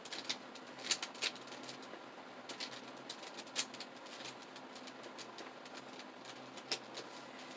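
3x3 mirror Rubik's cube being turned by hand: irregular plastic clicks as its layers turn, a few louder clacks among them.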